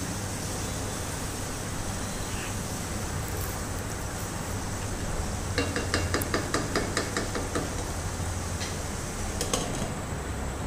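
Wooden spatula stirring chicken with tomatoes and chillies in a metal pot as they fry, over a steady hiss. About halfway through, the spatula knocks against the pot in a quick run of sharp taps, about five a second. Near the end come a few clicks as a glass lid is set on the pot.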